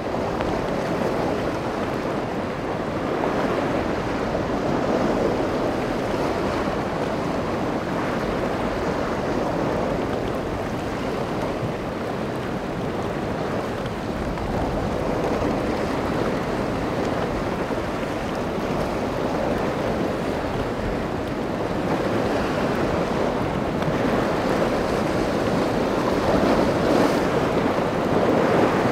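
Waves breaking and rough water rushing, with wind buffeting the microphone: a steady noise that swells a little at times, with no engine tone standing out.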